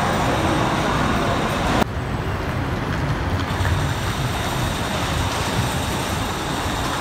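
Steady din of road traffic under a covered roadway. The sound changes abruptly about two seconds in, then carries on as a steady low rumble.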